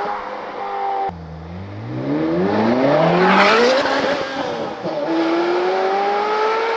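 Ferrari F430's flat-plane V8 through an Fi Exhaust, accelerating hard with a high-pitched exhaust note. The pitch climbs steeply and is loudest about three and a half seconds in, drops with an upshift about five seconds in, then climbs again.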